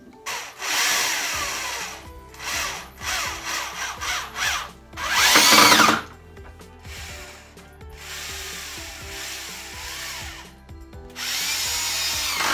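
Corded power drill driving screws through half-inch plywood into a wooden stand frame, in several bursts. The motor whine rises and falls with each burst, and the loudest run comes about five seconds in.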